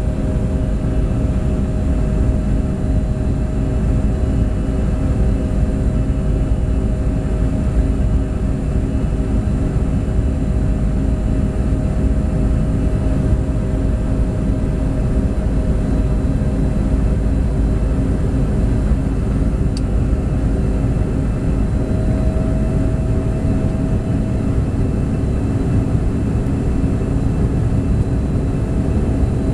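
The twin rear-mounted turbofan engines of a Bombardier CRJ regional jet, heard inside the cabin as a steady loud rumble with several steady whining tones. About two-thirds of the way through, one tone edges slightly higher.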